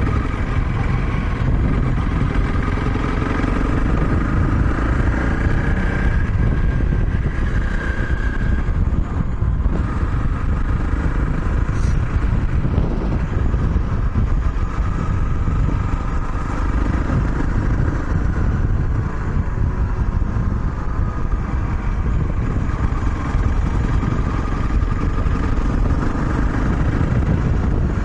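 Honda CRF250 Rally's single-cylinder engine running steadily while riding along the road, mixed with wind rushing over the camera microphone.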